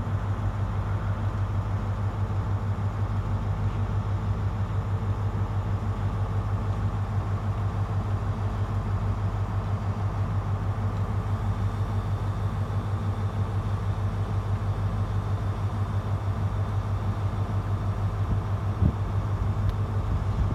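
Diesel rail vehicle's engine idling steadily, a low, even throb.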